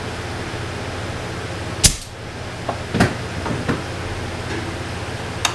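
Hand tools clanking: a sharp metal clank about two seconds in, a few lighter knocks around three seconds, and another sharp clank near the end, over a steady low hum.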